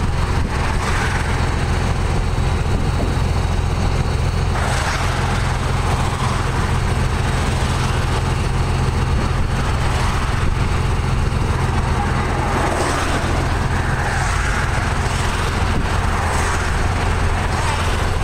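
Steady low rumble of a vehicle engine running, with a hiss of road or outdoor noise over it.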